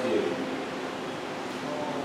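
Steady background hum and hiss of a railway station, with faint, brief distant voices and a short louder murmur right at the start.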